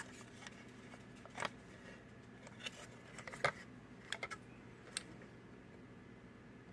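About half a dozen light, sharp clicks and taps, the loudest about three and a half seconds in, from small diecast model car parts and wheels being handled and test-fitted on a workbench.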